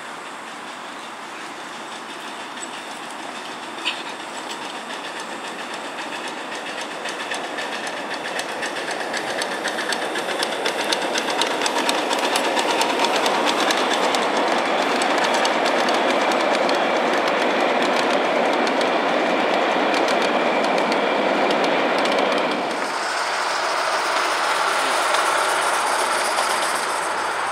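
Ride-on miniature railway train approaching and rolling past, its wheels clicking rapidly over the rail joints and growing louder as the cars pass close. Just over twenty seconds in, the sound cuts abruptly to a quieter, steadier one.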